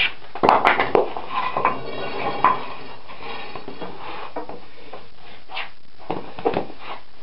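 Steel spud bar clanking and scraping as it is set in under a milling machine's base against a wooden block on a concrete floor: a quick run of ringing metal knocks in the first couple of seconds, then a few lighter knocks.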